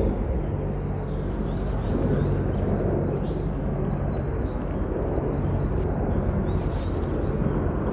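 Footsteps squelching through wet mud in trainers and white ankle socks, with small birds chirping in the background.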